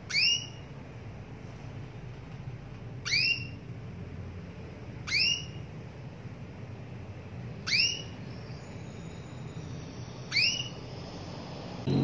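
Female canary giving a single short call note five times, a few seconds apart, each a quick upward-sweeping chirp: the hen's call to a male canary.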